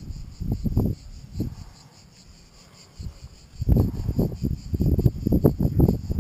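Insects droning steadily at a high pitch. Over it come low bursts of rustling and knocking from movement close to the microphone, briefly about half a second in and then almost continuously through the second half.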